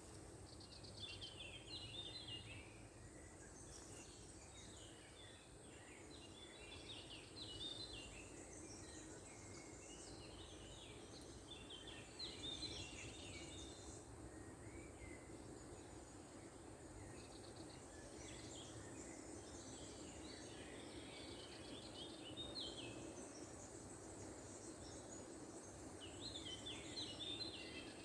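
Small songbirds singing and twittering in short, quick phrases that come and go, heard faintly over a steady background noise.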